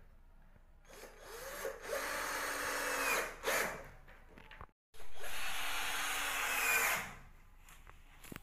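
Power drill running in two runs of a few seconds each, the first beginning with a short rising and falling whine.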